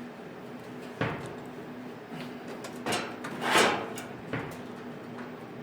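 Hardware being fitted into a server rack: a sharp knock, then clicks and a brief sliding scrape like a drawer, and another knock, over a steady hum of running equipment.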